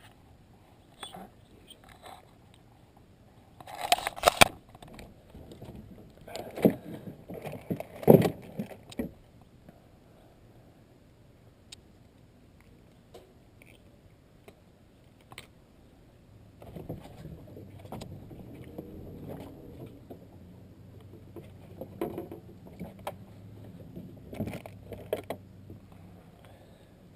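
Clattering knocks and rattles in a boat, as of gear being handled, loudest about four and eight seconds in and again near the end. A faint low hum runs under the later part.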